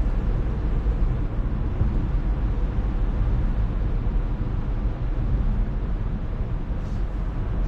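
Steady low road and engine rumble inside the cabin of a moving vehicle.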